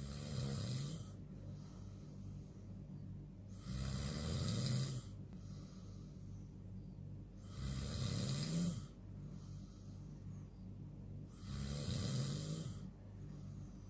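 A person snoring in sleep: four loud snores about four seconds apart, each lasting about a second, over a steady low hum.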